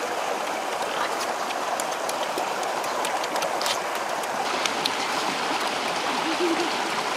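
Steady rushing of a small stream cascading over rocks, with a few faint sharp ticks.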